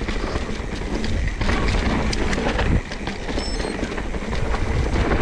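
Mountain bike rattling and clattering over rough trail on a fast descent: many sharp knocks over a heavy low rumble, with a brief high squeak about three and a half seconds in.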